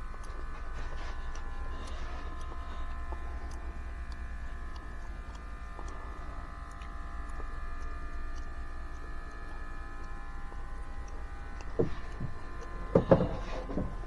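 Smoke machine's pump running with a steady electric buzz, pushing smoke into the engine's intake to find a small vacuum leak. A few sharp knocks come near the end.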